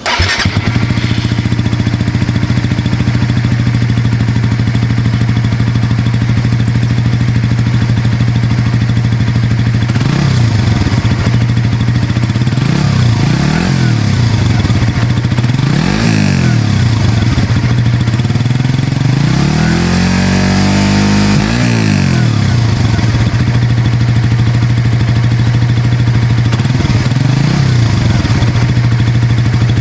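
Single-cylinder motorcycle engine with its stock exhaust, idling steadily, then blipped several times from about ten seconds in, with one longer rev about twenty seconds in that rises and falls back to idle.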